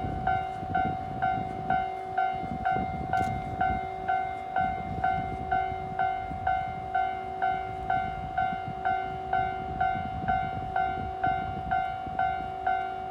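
Japanese level-crossing alarm ringing steadily at about three strikes a second, over the low rumble of a train passing over the crossing, headed by an EF81 electric locomotive.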